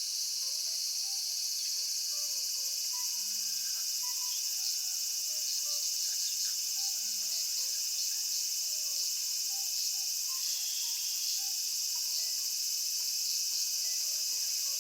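Dense, steady chorus of summer insects chirring high and unbroken.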